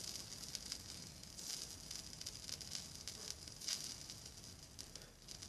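Faint sizzling and crackling of solder melting under the tip of an electric soldering iron, swelling a little a couple of times.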